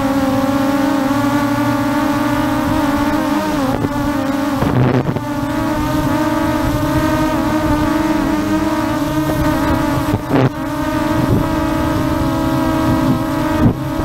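ZLL SG906 Max 2 quadcopter's motors and propellers humming steadily while hovering, the pitch wavering as the motors correct for gusty wind, with two short gusts of wind noise. The hum cuts off near the end as the drone strikes a flag.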